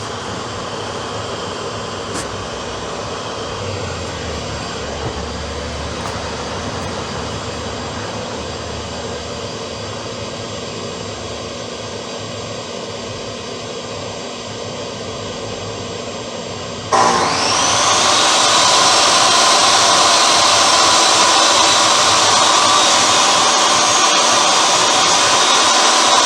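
A steady machine noise runs until, about two-thirds of the way in, a table saw switches on. Its motor whines up to speed and then runs steadily and much louder.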